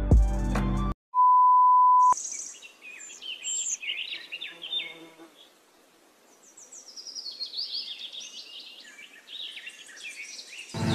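Background music cuts off, then a steady single-pitch electronic beep sounds for about a second. After it come short high chirps and twitters of small birds, falling away briefly in the middle and then returning as runs of descending chirps.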